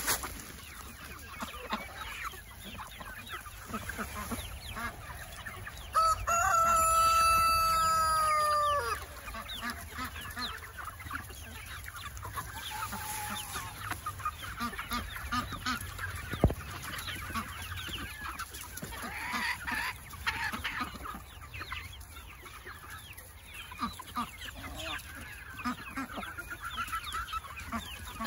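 A flock of chickens clucking steadily as they feed, with one long rooster crow about six seconds in, slightly falling in pitch and the loudest sound.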